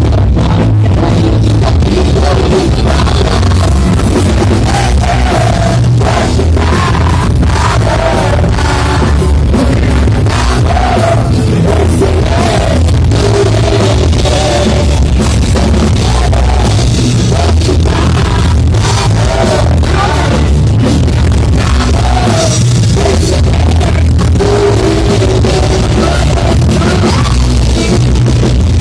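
Live rock band playing loud through a concert sound system: a sung melody over drum kit, guitar and heavy bass.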